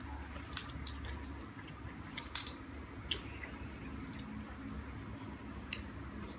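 Eating by hand: about five small sharp clicks and smacks from chewing and fingers working food, the loudest near the middle, over a low steady hum.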